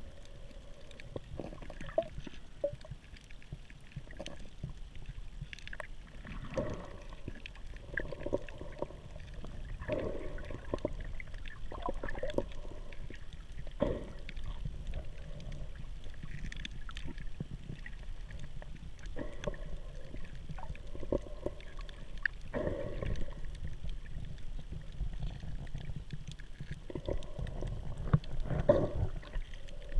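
Muffled water sloshing and rushing, recorded underwater just below the surface: a steady low rumble with repeated surges every second or two.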